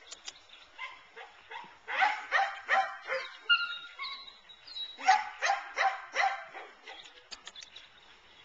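A dog barking in two quick runs of about four barks each, with fainter barks around them and a few thin whining tones between the runs.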